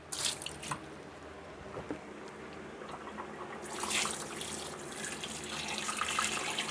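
Water pouring into a soup pot to cover chicken, a steady splashing rush that starts about halfway through, after a few light knocks in the first second.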